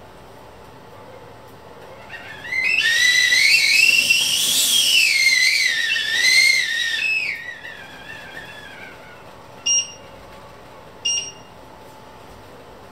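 A high, wavering whistle that rises and then falls in pitch for about five seconds before fading, followed by two short electronic beeps about a second and a half apart.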